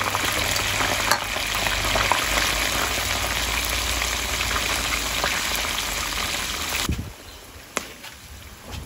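Cornflour-coated yellowtail bones and heads deep-frying in a wok of hot oil: a loud, dense sizzle as chopsticks stir the pieces. About seven seconds in it drops suddenly to a much quieter sizzle.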